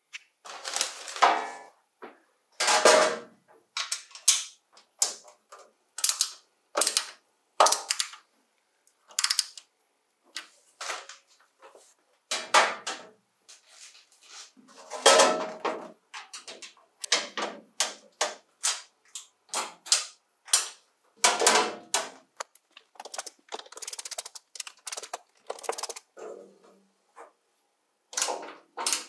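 Sheet-metal panels of a sandblasting cabinet being handled and fitted together: a long run of irregular metal clanks, knocks and clicks, some in quick clusters and a few heavier thuds.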